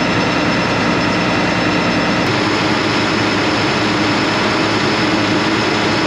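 John Deere combine harvester running, a loud, steady drone with a constant whine in it; the deepest rumble eases slightly about two seconds in.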